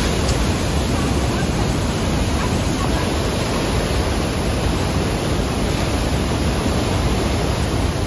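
Bridal Veil Falls at Niagara pouring onto the rocks close by: a loud, steady rush of falling water that never lets up.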